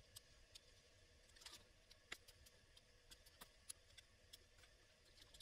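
Faint, irregular ticks and scratches of a snap-off craft knife blade scoring wood grain into the injection-moulded plastic planks of a model wagon.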